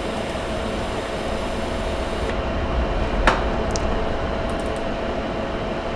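Steady machine-like hum with a faint held tone, and a single sharp click a little after three seconds in. A high hiss drops away just past two seconds.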